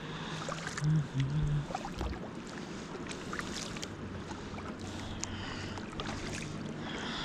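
Kayak paddling: paddle strokes splashing and dripping, with water lapping and small knocks against the hull, over a steady low hum.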